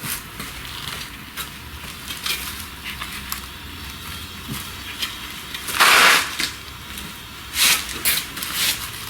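Masonry work sounds: scattered clicks and knocks with a loud scraping rasp about six seconds in and a shorter one near the end.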